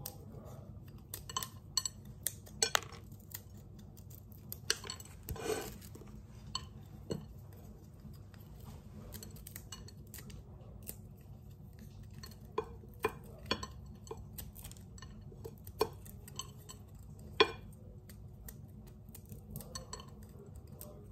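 Irregular clicks and clinks of kitchenware while walnut kernels are broken into smaller pieces, with a few sharper knocks standing out, the loudest one late on.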